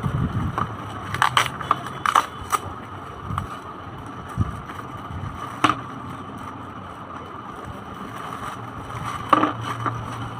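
Clear plastic packaging crinkling and crackling as hands handle and unwrap a plastic toy steering wheel: a flurry of crackles about one to two and a half seconds in, a sharp one near the middle, and another near the end, over a steady low hum.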